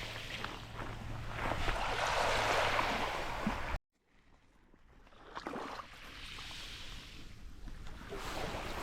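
Surf washing up the beach in swells, with wind rumbling on the microphone; the sound cuts out abruptly about four seconds in, then the waves build back up.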